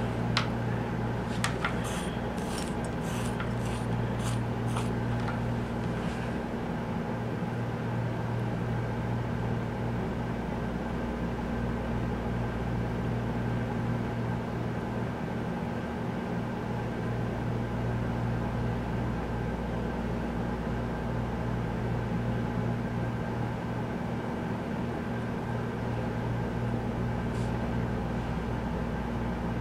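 Steady low electrical mains hum with a light hiss under it, unchanging throughout. In the first few seconds, a quick run of light clicks and taps.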